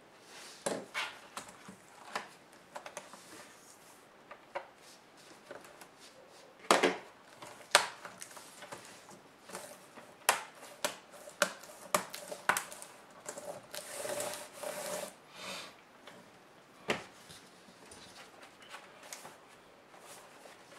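Hand work on an ASUS G73 laptop: a string of irregular sharp clicks and knocks of plastic and metal parts being handled, with a couple of seconds of rubbing or scraping past the middle.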